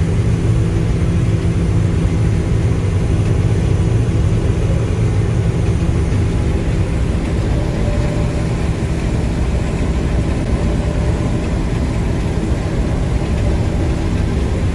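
Combine harvester running steadily during corn harvesting, a constant low engine hum heard from inside the cab.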